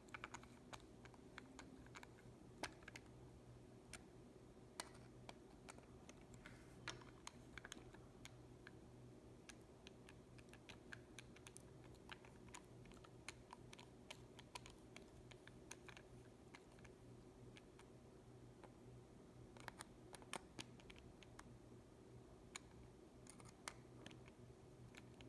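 Faint, irregular small metallic clicks of a screwdriver working a screw on the flat metal strap across a pepper mill's grinding mechanism, a homemade strap cut from a lawnmower oil dipstick. A steady low hum runs underneath.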